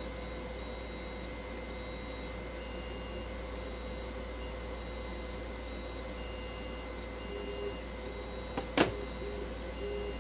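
3D printer running: short whining tones from its motors over a steady hum, and a single sharp snap about nine seconds in.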